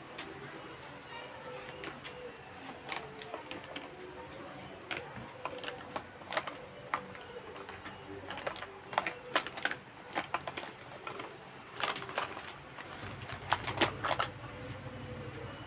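Handling noise: irregular light clicks and taps as the phone camera is moved about and fumbled with. The clicks come thicker in the second half, and near the end a low hum comes in.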